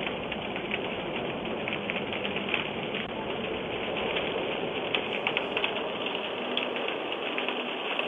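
House fire burning with a dense, steady crackle and irregular sharp pops, heard through a Ring doorbell camera's microphone.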